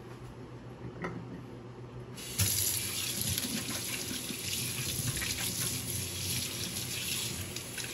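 Kitchen sink faucet turned on about two and a half seconds in, then a steady stream of water running over hands being washed.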